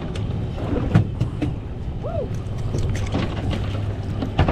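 Boat motor running steadily as a low hum, with a few sharp knocks, one about a second in and one near the end.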